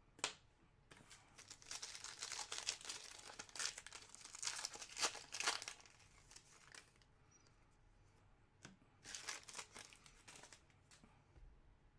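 Trading-card pack wrapper being torn open and crinkled, in two spells of faint rustling, the longer one over the first half and a shorter one near the end.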